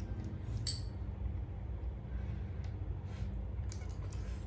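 Chopsticks clinking and tapping against small plates while eating noodles: one clear ringing clink a little under a second in, then a few fainter clicks, over a steady low hum.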